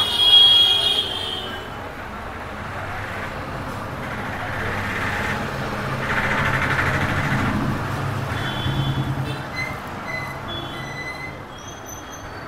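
Passing road traffic, a broad vehicle rumble that swells and fades. A short, loud, high-pitched tone comes near the start, and brief high squeaks or chirps come in the second half.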